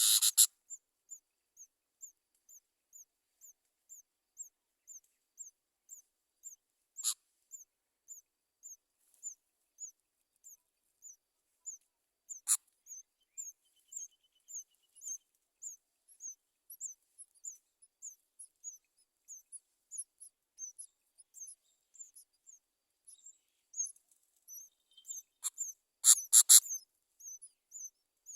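Nestling birds giving a steady series of thin, high cheeps, about two to three a second, with a few sharper, louder bursts of calling: one right at the start, two in the middle, and a loud cluster near the end.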